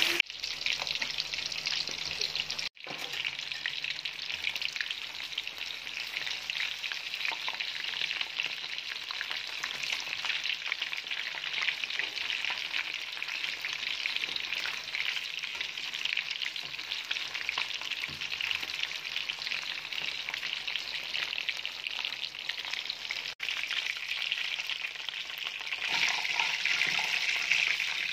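Battered chicken pieces deep-frying in hot oil: a steady, dense sizzle and crackle, broken by two very short gaps.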